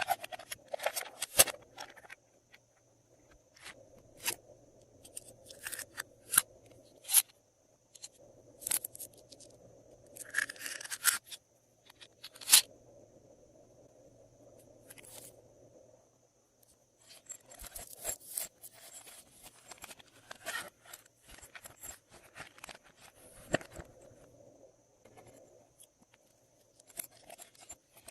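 Glossy slime being mixed and worked by hand: irregular clusters of small clicks and crackles with short pauses between them.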